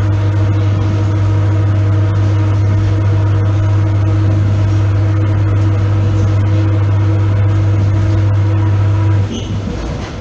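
ER9P AC electric train heard from inside the carriage: a loud, steady low electrical hum with fainter higher overtones over the rumble of the running gear. The hum cuts off suddenly about nine seconds in, leaving quieter rolling noise.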